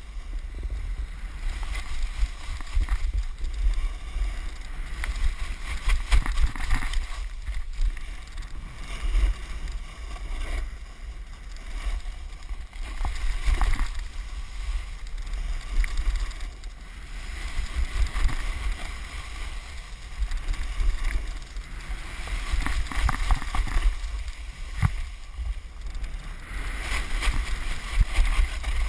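Wind rumbling on a GoPro's microphone while snowboarding, with the board's edge scraping across groomed snow in surges every few seconds as it carves turns.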